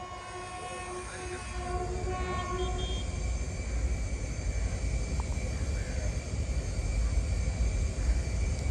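Electric locomotive hauling a loaded goods train on an approach, a low steady rumble that grows louder. A faint held tone with overtones sounds during the first three seconds.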